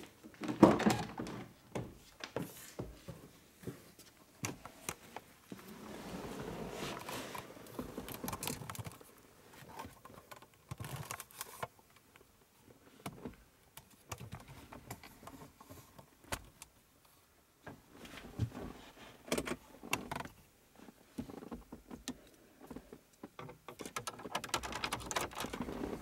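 Getting into a car and handling things in the cabin: a sharp knock about half a second in, then scattered clicks, rattles and rustling, with a longer stretch of rustling about six to nine seconds in.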